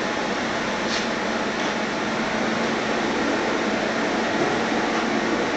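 V40 diesel radiant heater running: a steady rush of its burner fan and flame, with a single click about a second in.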